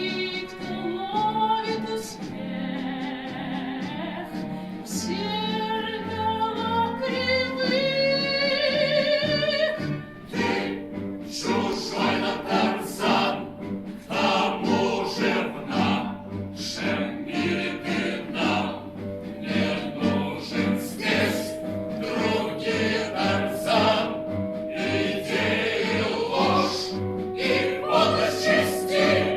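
Music with singing: long, wavering sung notes at first, then about ten seconds in a steady beat of drum hits comes in under the voices.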